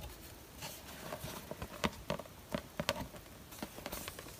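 Stiff cardboard journal covers made from cereal boxes being handled: light rustling with a string of small, irregular clicks and taps as the covers are flexed open and turned over.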